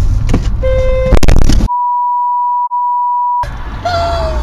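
A steady 1 kHz censor bleep lasting nearly two seconds, with all other sound muted behind it and a tiny break in the middle. Before it come in-car road noise, a short tonal honk and a loud burst of noise about a second in.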